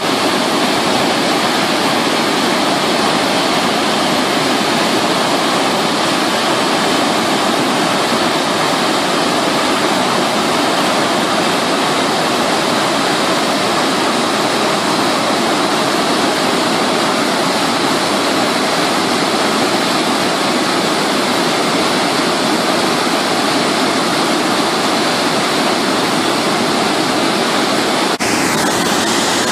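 Loud, steady rush of water pouring through a dam's open spillway gates, with a slight shift in the sound about a second before the end.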